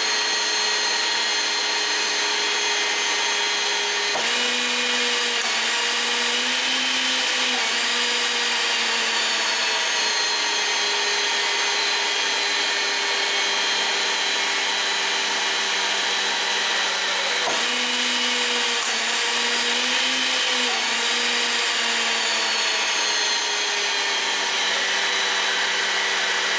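HYTORC QAS hydraulic pump running steadily, driving four Avanti hydraulic torque wrenches through their tightening cycles. Twice, at about 4 and 17 seconds in, a sharp click comes as the pump cycles, and its pitch wavers for a few seconds after each click before settling.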